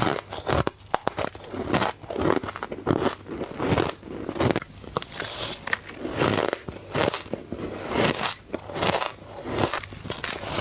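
Soft ice being bitten into and crunched between the teeth, close to the microphone: a run of crackly crunches every half second to a second.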